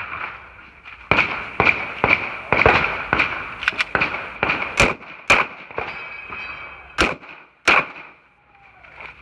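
Glock 17 9mm pistol firing a rapid string of more than a dozen shots, many in quick pairs, during a timed competition stage. A couple of gaps break the string, and it stops near the end.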